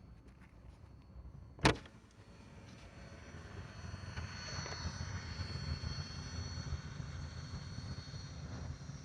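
A sharp knock about two seconds in, then a small propeller airplane's engine sound swelling from about three seconds in and staying loud, with a low rumble and a high whine.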